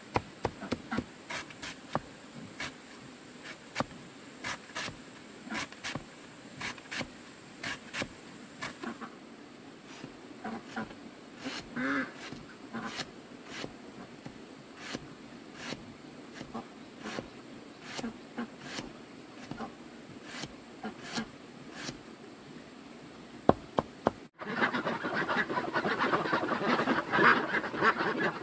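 A string of irregular sharp clicks and snaps over a thin, steady, high insect drone, with a short animal call about twelve seconds in. After an abrupt break near the end, a denser rustling noise takes over.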